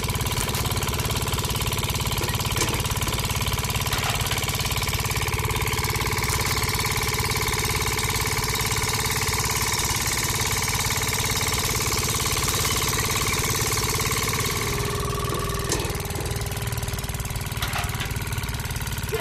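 Small motor running steadily, driving a toy-scale roller press by belt as a green stalk is crushed through the rollers. The running gets a little quieter about fifteen seconds in.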